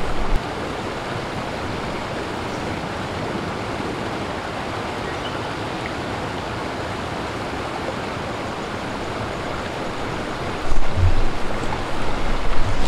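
River water flowing steadily, a constant rushing hiss. About two seconds before the end, a louder low rumble comes in on the microphone.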